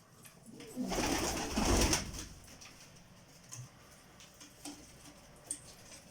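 Pigeon cooing, with a loud rustling noise lasting about a second, starting about a second in, then a few faint ticks.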